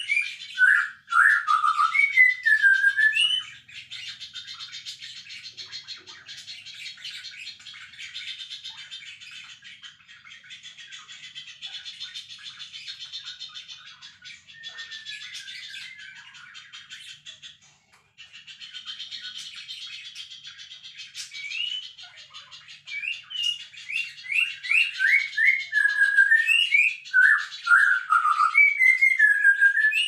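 Songbird singing: loud whistled phrases of gliding notes at the start, then a quieter, dense, high chattering warble for about fifteen seconds. The loud whistled notes return in quick runs over the last third.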